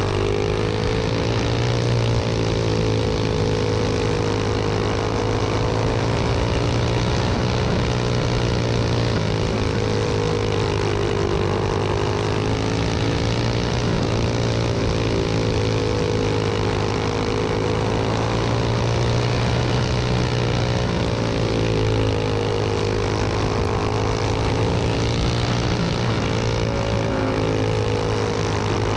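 Racing go-kart engine at full speed, heard from on board. Its pitch rises and falls every few seconds as the kart speeds up and slows through the laps.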